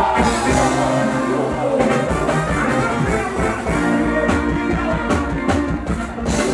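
Live band playing Ghanaian gospel music with a regular drum beat, the lead singer's voice over the band.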